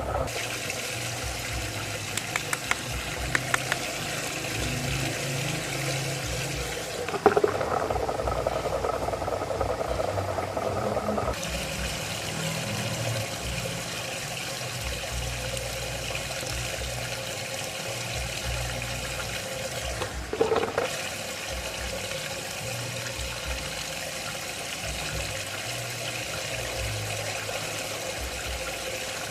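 Water rushing and swirling steadily in a whirlpool vortex, with a few brief knocks and splashes. The rushing changes character about eleven seconds in.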